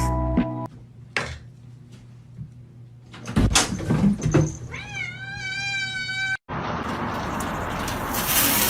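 A cat gives one long, drawn-out meow lasting nearly two seconds, a little past the middle. It is preceded by a few light knocks and rustles and followed by a steady rushing noise.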